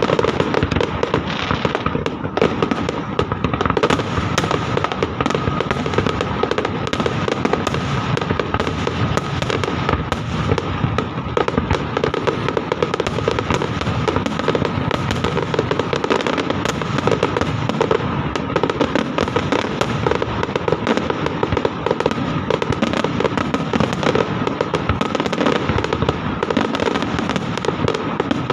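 Fireworks display in a dense, unbroken barrage: rapid bangs and crackles overlapping with no let-up.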